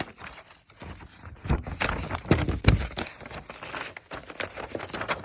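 Packaging being handled: paper and plastic rustling and crinkling with quick clicks, loudest in the middle.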